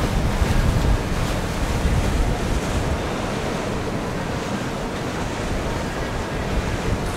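Water rushing and splashing from the bow wave and wake of a Riva 72 Perseo motor yacht going past, with wind buffeting the microphone. Loudest in the first second, then a steady wash.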